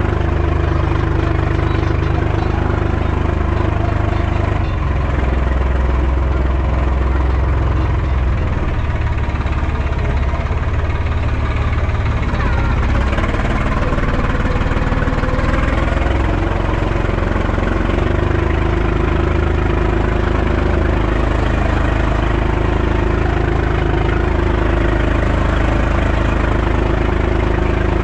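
Hattat 240s compact tractor's diesel engine running steadily as the tractor is driven over rough grass and down a muddy track, its pitch shifting a little with the load.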